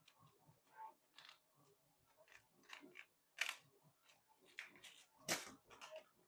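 Faint plastic clicks and scrapes as a 3D-printed desiccant box is worked into a slot of a Bambu Lab AMS filament unit, with two louder clacks about three and a half and five seconds in.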